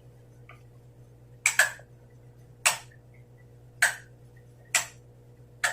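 A series of sharp clicks or taps, about one a second, the first one a quick double.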